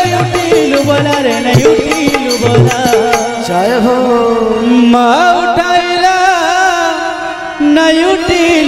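Devotional bhajan music. For the first three seconds a drum beats a quick, even rhythm under a melodic accompaniment. After that the drum drops out and a male voice sings a long, wavering line without clear words over held notes.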